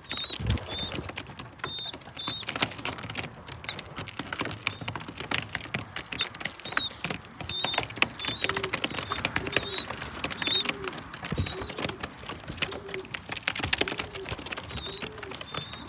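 Racing pigeons moving about close by: a busy run of clicks and scuffles from their feet and beaks, a flurry of wing flaps near the end, and a pigeon cooing over and over in the second half. Through it a small bird gives short high chirps again and again, an alarm call taken as a sign of a predator lurking.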